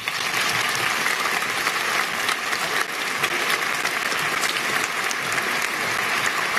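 Large audience applauding: dense, even clapping that starts right after the closing words and holds steady.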